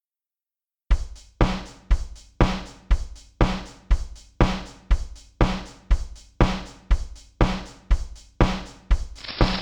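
About a second of silence, then a steady drum beat of about two evenly spaced hits a second, each a deep thud with a sharp crack that dies away quickly. Shortly before the end a steady hiss joins the beat.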